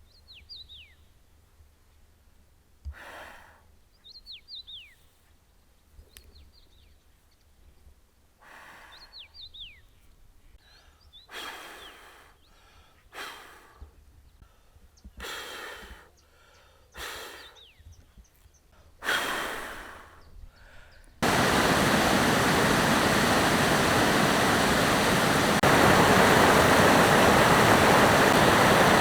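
Small birds calling in short falling whistles, with soft swishing rustles every second or two. About two-thirds of the way in, it cuts abruptly to a loud, steady rush of running water.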